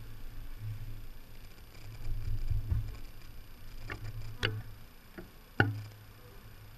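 A low steady hum with a handful of sharp knocks in the second half, the loudest near the end: a package of bees being knocked and shaken to dump the bees into the hive.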